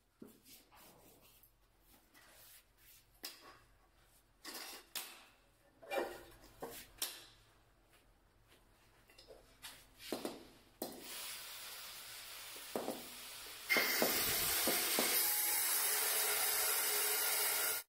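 Scattered light knocks and taps of hand tools being set down and handled on a stone floor tile. Past the middle a steady hiss starts, grows louder a few seconds later, and then cuts off.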